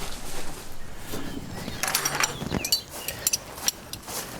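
Metal hand tools clinking and clicking: a run of short, sharp metallic clinks about halfway through, as wrenches and sockets are handled to size a half-inch bolt.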